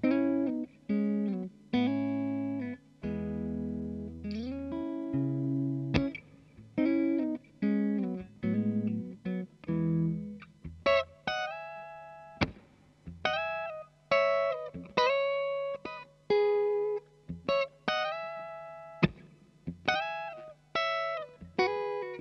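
Clean electric guitar: a Strat-style guitar with single-coil pickups played through the Kool Amplification Blue Sky, a 35 W single-channel 6L6 tube amp, set for a bass-heavy, mid-scooped clean Dumble-style tone. It plays chords with low bass notes for about the first ten seconds, then higher single-note lead lines. Each note is picked and rings out before fading.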